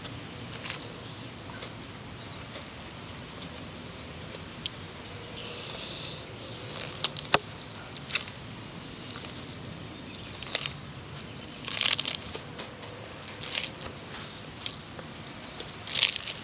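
Sulcata tortoise biting and tearing romaine lettuce, a crisp crunch every one to two seconds at an uneven pace.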